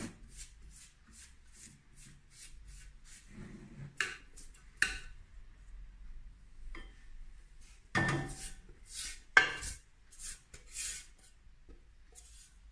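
Thermomix spatula scraping icing sugar out of the stainless-steel mixing bowl in quick repeated strokes, with a few sharp knocks as the bowl is tipped and tapped to empty it.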